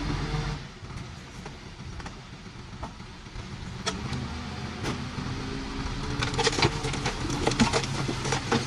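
Diesel engine of heavy earthmoving machinery running, easing off about half a second in and picking up again, with a run of metallic clanks and rattles through the second half.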